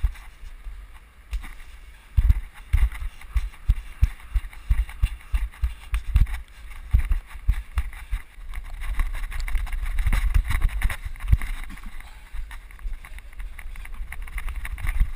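Running footsteps and landings of a parkour run, thudding into the body-worn GoPro's microphone about two to three times a second, with a rush of wind on the microphone that is strongest from about nine to twelve seconds in.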